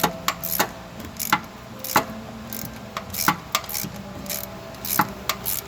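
Irregular sharp metal clicks and ticks, about two or three a second, as a thread tap is turned by hand to chase a stripped bolt hole in an engine.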